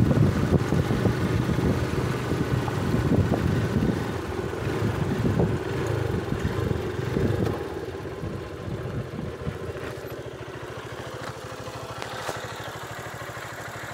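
Small motorcycle engine running as the bike rides along a gravel road, with loud low rumble at first; about halfway through it gets quieter and settles into an even, steady idle-like running.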